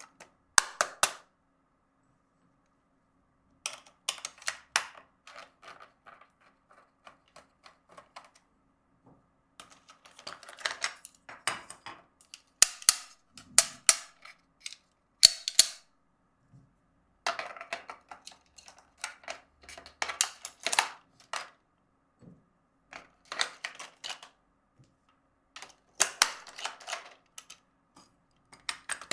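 Toy packaging and plastic toy parts being handled and unwrapped: clusters of sharp crackles and clicks, each lasting a second or two, separated by silent pauses.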